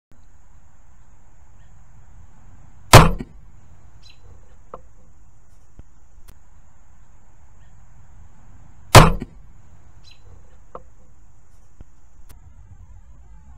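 Crossbow shot: a sharp, loud crack as the string and limbs release, heard twice about six seconds apart, with a fainter tick following each crack a second or so later.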